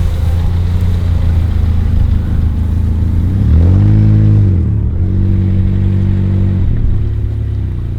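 Car engine running under way, a steady drone whose pitch rises and then drops back a little past the middle before settling steady again.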